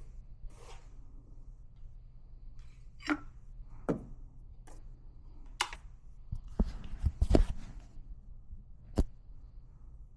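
Scattered clicks and knocks of small coffee-making equipment being handled, with a cluster of louder knocks about six and a half to seven and a half seconds in and one sharp click near the end.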